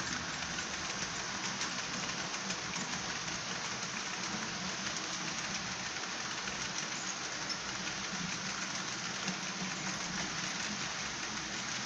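HO scale 2-8-0 steam locomotive model with a Soundtraxx Tsunami sound decoder running under load, its steam running sound played through the model's small speaker: a steady hiss with no clear beat, mixed with wheels on the track.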